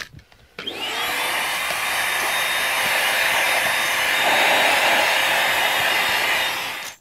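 Handheld vacuum cleaner switched on, its motor spinning up with a rising whine, then running steadily with a change in the airflow sound about four seconds in. It cuts off abruptly near the end.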